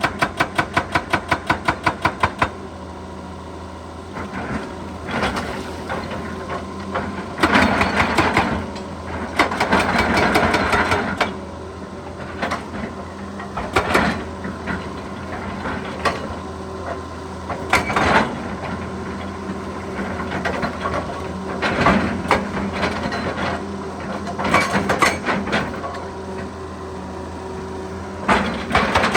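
Excavator's hydraulic breaker hammering rapidly, about eight blows a second, stopping about two seconds in. After that the diesel engine runs steadily, with repeated loud, noisy bursts of rock and bucket work over it.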